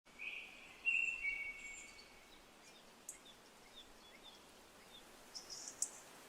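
Faint birdsong: a few short whistled notes in the first two seconds, then scattered brief chirps over a soft hiss.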